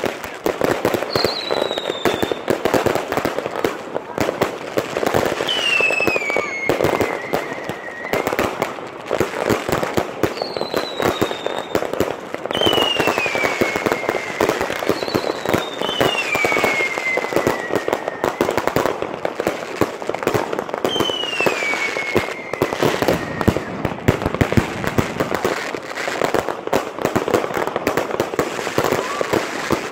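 Eight battery firework cakes firing at once: a dense, unbroken crackle of bangs and pops. About six long whistles, each falling in pitch, cut through it.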